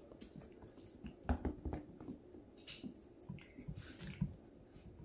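Small puppy playing with a rubber ball on a tile floor: scattered light knocks, scuffles and clicks of paws and ball, loudest in a cluster of thumps about a second and a half in, with mouthing sounds as it grabs the ball.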